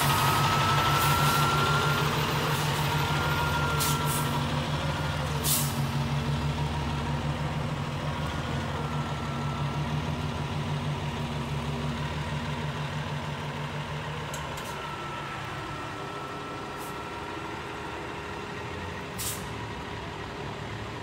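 A KME fire engine's diesel engine running as the truck backs into the station bay, growing fainter as it moves away. Short air-brake hisses come about 5 s in and again near the end.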